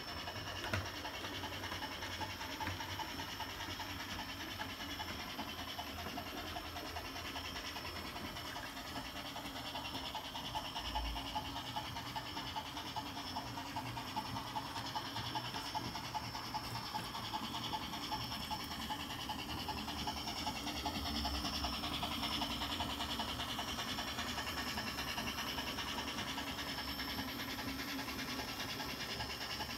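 Brass O scale model of a 2-6-2+2-6-2 NGG16 Garratt steam locomotive running along the track: a steady, fast rhythmic chuffing over a hiss, a little louder about two-thirds of the way through.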